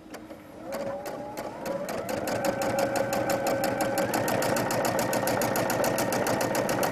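Domestic sewing machine free-motion quilting through fabric and batting: the motor hums and the needle strokes tick evenly, starting slow and speeding up over the first two seconds to a steady fast stitch.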